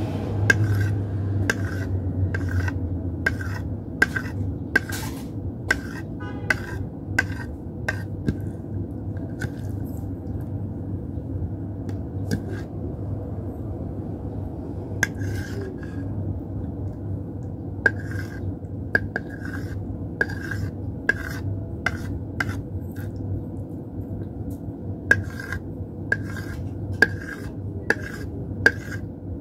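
Small kitchen knife slicing gulaman jelly into thin strips, its blade tapping against a plate in sharp, irregular clicks, with a lull in the strokes about a third of the way in. A steady low hum runs underneath.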